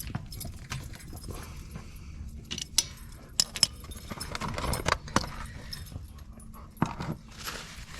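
Metal hand tools clinking and rattling, with several sharp clicks, as a socket wrench tightens the oil drain plug on a 125cc ATV engine.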